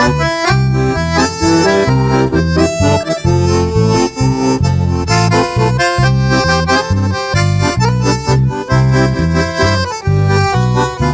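A live band plays the instrumental introduction to a sertanejo song: a melody in held notes over a steady, pulsing bass beat.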